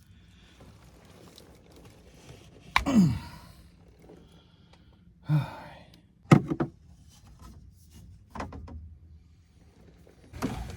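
A few sharp knocks and thunks of something heavy being shifted in a cramped space, mixed with a man's grunts and a falling groan of effort as he strains.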